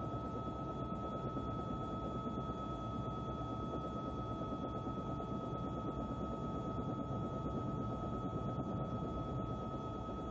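Steady aircraft noise heard from on board: a low rumble with a constant high whine.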